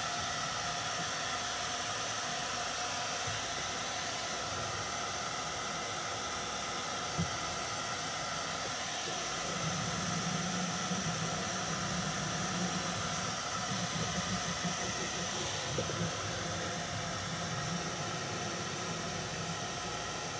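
Handheld hair dryer blowing steadily, a constant rushing hiss with a faint motor whine; a deeper hum joins in about halfway through.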